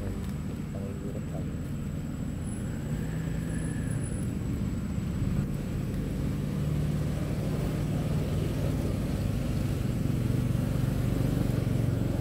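A motor vehicle engine running with a steady low rumble that grows a little louder toward the end.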